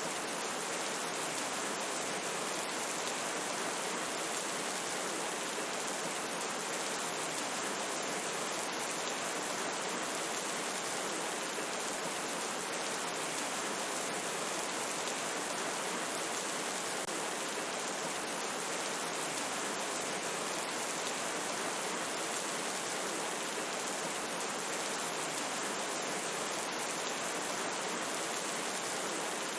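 Steady rainfall, a dense even hiss with fine drop patter on top and no change in strength.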